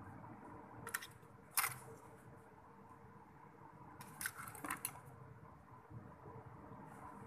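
Metal dissecting instruments clicking and clinking as they are handled: two sharp clicks a little over a second apart, then a quick cluster of clicks about four seconds in.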